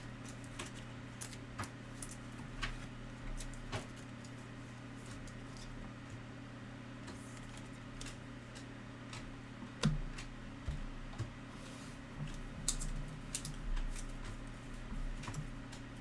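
Trading cards and clear plastic card holders being handled by hand: scattered soft clicks, taps and rustles, the loudest about ten seconds in, over a steady low hum.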